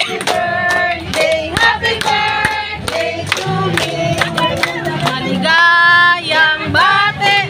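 A group of people singing a birthday song together with music, clapping their hands in time.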